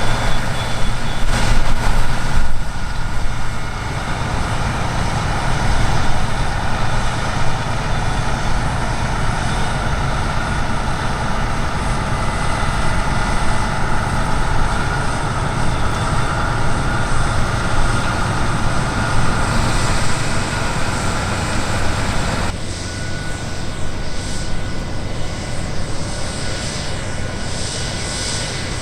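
Heavy farm harvest machinery running steadily: a deep engine drone with a steady high whine over it. The sound changes abruptly to a quieter, thinner one about three-quarters of the way through.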